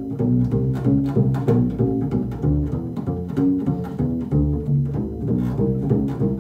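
Double bass recording playing a run of low notes one after another, a few notes each second.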